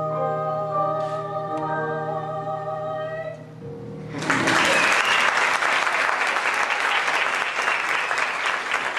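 A man and a woman hold the final sustained note of a musical-theatre duet, their voices wavering with vibrato. About four seconds in the singing stops and loud audience applause starts, continuing to the end.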